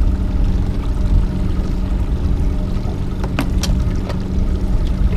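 Suzuki outboard motor running steadily at slow trolling speed, a low hum with water and wind noise on the boat. Two sharp clicks come a little past halfway.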